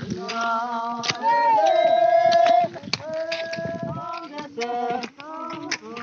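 Voices singing a tune, with a long, loud held note about one and a half seconds in. Irregular sharp knocks of iron hoes biting into dry soil sound under the singing.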